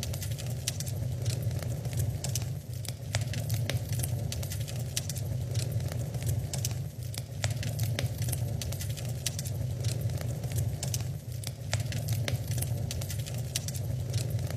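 Wood fire crackling in a fireplace: many irregular sharp pops and snaps over a steady low rumble of the flames.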